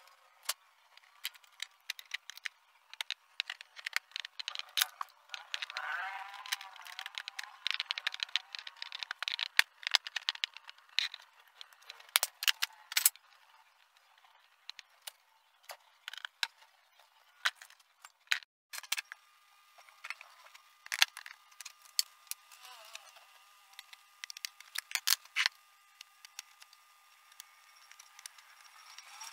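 Irregular clicks, taps and knocks of plastic and sheet parts being handled and seated as a Polytron PLD 24D123 LED TV is put back together: the frame, the LCD panel and the plastic back cover.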